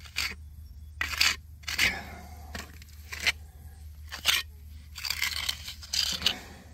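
Square trowel packing and smoothing stiff cement repair mortar into deep holes in a concrete foundation wall: an irregular run of short gritty scrapes, with a longer smearing scrape about five seconds in.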